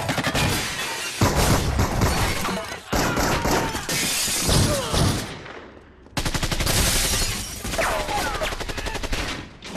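Film gunfight soundtrack: rapid automatic gunfire in dense volleys, with things shattering. The firing drops away briefly a little past halfway, then a fresh fast burst starts up.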